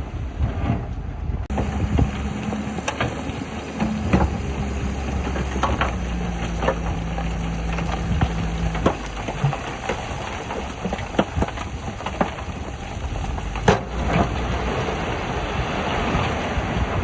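Bulldozer's diesel engine running under load, with irregular metallic clanks and knocks scattered throughout.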